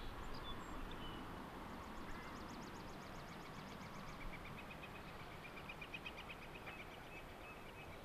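Faint outdoor background with distant small birds singing rapid trills: a high, thin trill starting about two seconds in, then a lower trill through the middle.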